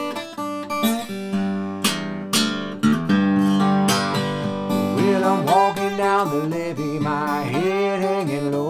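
Collings 002h steel-string acoustic guitar played blues with a slide, fingerpicked over a steady thumbed bass. About halfway through, the slide notes start gliding and wavering in pitch.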